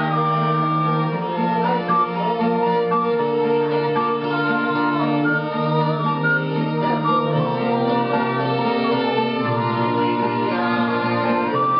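An acoustic guitar and two violins play an indie pop song together, with a woman singing.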